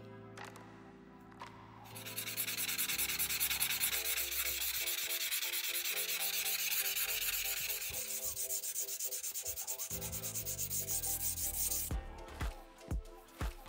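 Steel knife blade being hand-polished with abrasive, fast back-and-forth rubbing strokes that start about two seconds in and stop shortly before the end.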